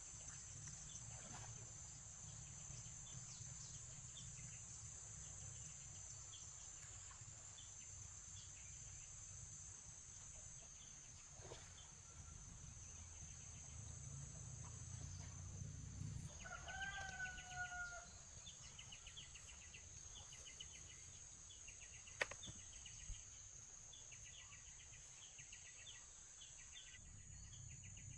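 Quiet rural ambience: insects keep up a steady high drone with patches of rapid chirping. A chicken calls once, about two-thirds of the way through.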